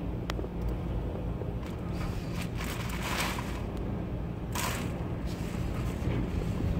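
Hurricane-force wind and driving rain, with the wind buffeting the microphone as a steady low rumble. Louder rushing gusts swell up about two and a half seconds in and again near four and a half seconds.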